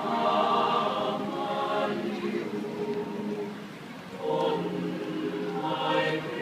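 Mixed chamber choir singing a cappella in held chords. The singing thins out about three and a half seconds in, then the full choir comes back in strongly just after four seconds.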